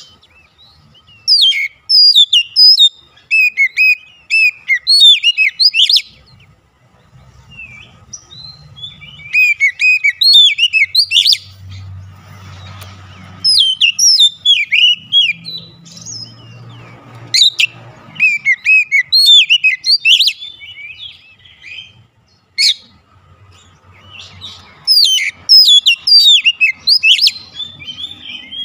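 Oriental magpie-robin (kacer) singing in bursts of fast, high, varied whistled notes, with pauses of a few seconds between bursts. A faint low rumble sits underneath at times.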